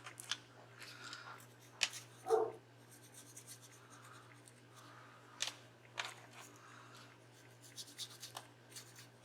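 Faint clicks and rustling of paper flowers and craft materials being handled and cut, a few sharp ticks standing out, over a steady low hum. About two seconds in there is one short, low vocal sound.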